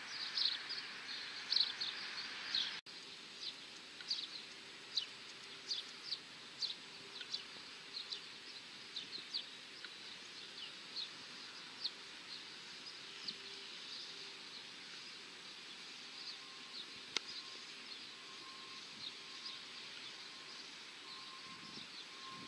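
Small birds chirping: many short, high chirps, busy for the first few seconds, then thinner and more scattered after the sound drops abruptly. A faint steady hum lies underneath.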